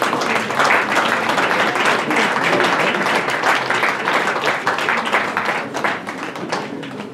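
Audience applauding with dense clapping that starts abruptly and tails off near the end.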